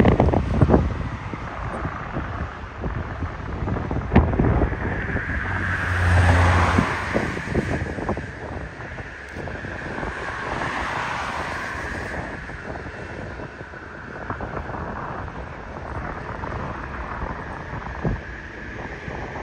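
Jet airliner engines running, a broad rumble that swells and fades about six seconds in and again around ten to twelve seconds. Gusts of wind buffet the microphone throughout.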